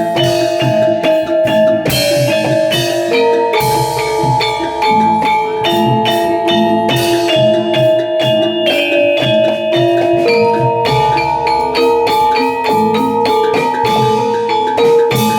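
Javanese gamelan-style accompaniment for kuda lumping: bronze gong-chime and metallophone notes ringing in a steady rhythm over drums.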